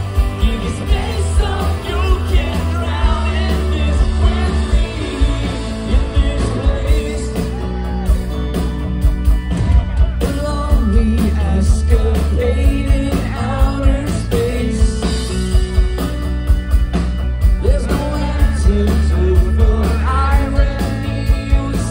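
Rock band playing live with piano, electric guitar and drums under singing, heard from within the crowd.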